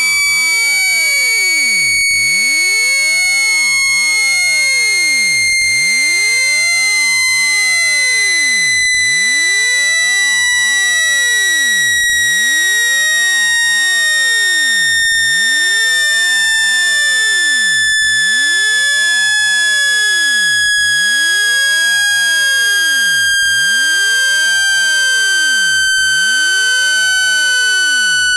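Electronically generated speaker-cleaning tone, meant to push water and dust out of a phone speaker grille. It is a loud, steady high tone with overtones, gliding slowly and evenly down in pitch.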